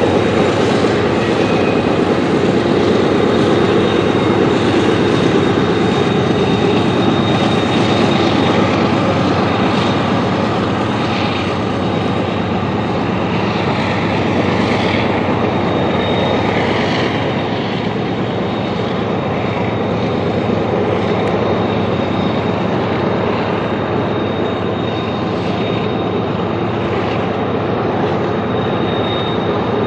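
Loaded Norfolk Southern freight train rolling past on Horseshoe Curve: a steady rumble of cars and wheels on the rails with high-pitched flange squeal that comes and goes. The train's two rear-end helper diesel locomotives, led by a GE AC44C6M, pass as they push it upgrade.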